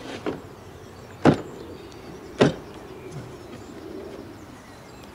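The plastic cover of a Husqvarna Automower 430X robotic mower being pressed back onto its body, snapping into place: a soft click, then two sharp snaps about a second apart.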